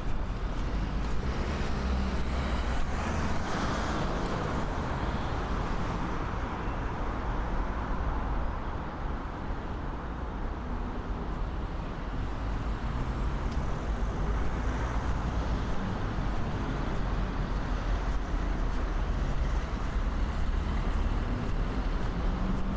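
Street traffic: a steady rumble of passing cars.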